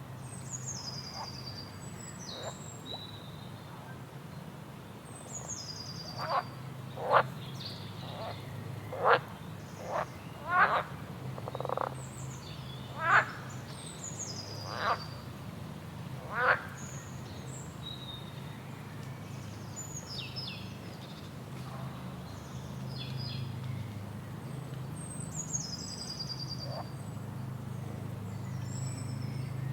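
A waterfall's steady low rush, with repeated high, falling bird calls over it. In the middle comes a run of about ten loud, short, sharp animal calls.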